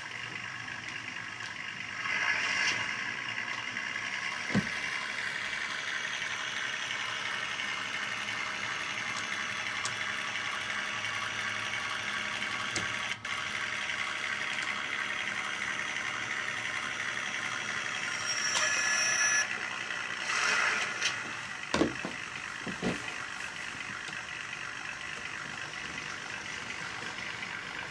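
Model rail truck's sound decoder playing a steady idling engine sound through its small speaker. The sound never breaks while the truck turns on the turntable, a sign that the track polarity switching works. A short higher tone about two-thirds through, and a few sharp knocks soon after.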